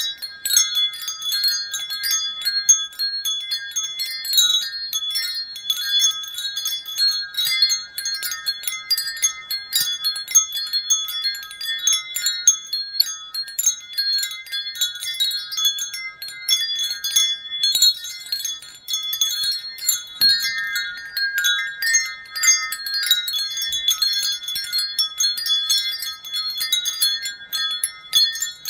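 Wind chimes ringing: many overlapping high metallic tones, struck again and again at irregular moments.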